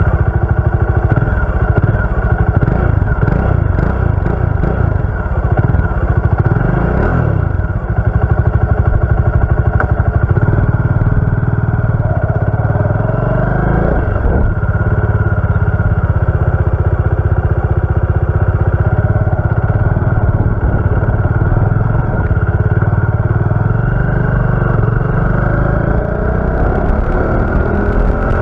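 Bajaj Dominar 400's single-cylinder engine running loudly through its exhaust, with a few brief revs in the first half and its pitch climbing near the end as the bike accelerates.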